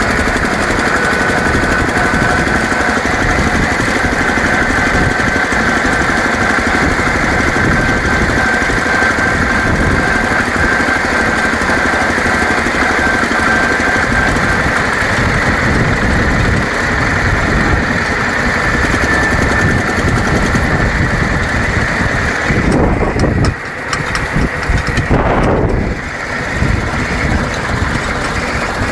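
Vintage single-cylinder diesel tractor engine running steadily under way on the road, with a thin high whine over it through the first half. About 23 seconds in the sound briefly drops and changes.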